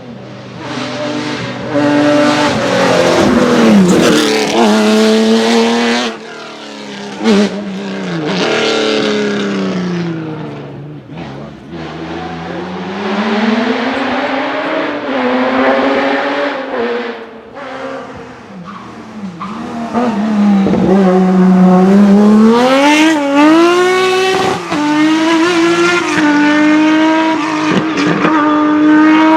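Race car engines at full throttle on a hillclimb course. The engine note climbs and falls several times as the cars accelerate and slow for bends.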